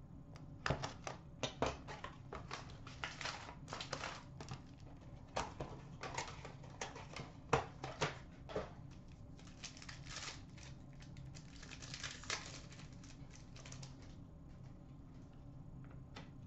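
Plastic wrapping crinkling and tearing as a shrink-wrapped box of hockey cards and its packs are opened and handled by hand: irregular rustles and small clicks, thinning out near the end.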